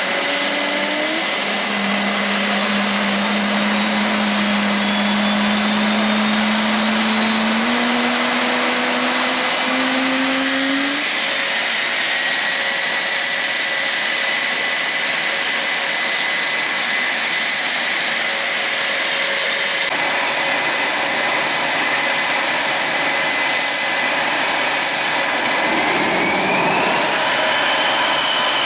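Blue Angels F/A-18 Super Hornet jet engines running on the ramp: a steady, loud turbine rush with whining tones. A low hum steps up in pitch over the first ten seconds, and a high whine rises sharply near the end as an engine spools up.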